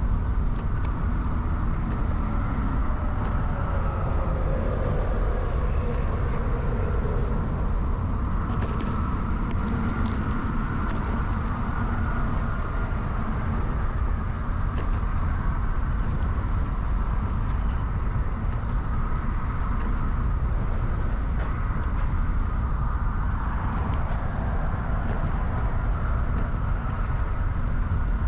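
Early-1970s Peugeot UJ-10 ten-speed bicycle being ridden: a steady low rumble of tyres and wind, with a few sharp clicks and rattles about eight to eleven seconds in.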